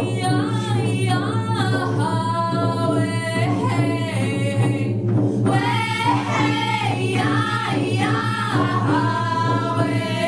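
Women's voices singing an Indigenous healing song together, with steady held and sliding notes over the low sound of frame hand drums.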